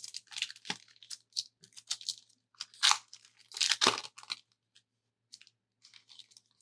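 A Panini Contenders basketball card pack wrapper being torn open and crinkled, in irregular crackling bursts that are busiest in the first four seconds and then thin out.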